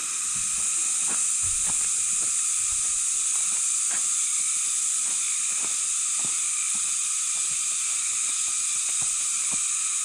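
A steady, high-pitched hiss, level throughout, with faint irregular taps and knocks beneath it.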